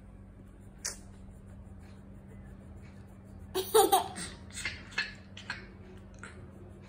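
A young boy laughing: one loud laugh about three and a half seconds in, then a few shorter bursts of laughter trailing off. A single short click comes about a second in.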